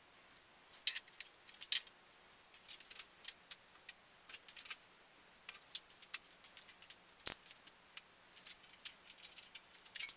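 Scattered light clicks and small rattles of objects being handled at a workbench, with one duller knock about seven seconds in.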